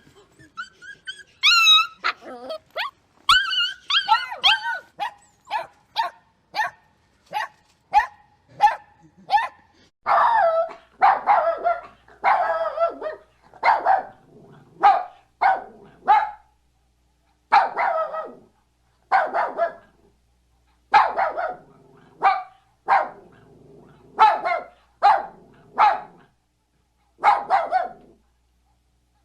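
Puppy barking over and over in short, high yaps, about one or two a second, after a few high-pitched yelping whines in the first seconds; the barks grow louder from about ten seconds in.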